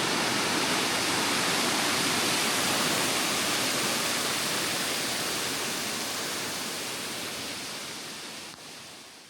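Steady rushing of a large waterfall's falling water, fading out over the last few seconds.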